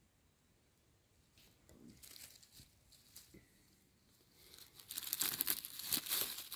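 Dry forest leaf litter rustling and crackling: faint and sparse at first, then a dense run of crackling about five seconds in.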